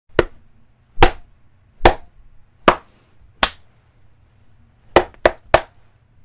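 Single person clapping hands: five slow claps about a second apart, then after a pause three quicker claps.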